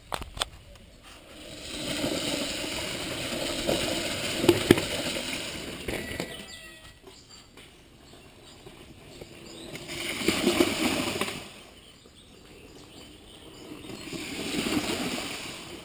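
Mountain bikes splashing through a shallow stony stream ford in three passes, each swelling and fading over a few seconds, the first with a few knocks of tyres on rocks.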